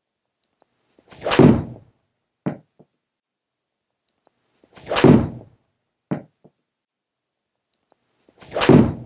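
Three golf iron shots: each a swing whoosh that swells into a sharp strike, followed about a second later by two short knocks.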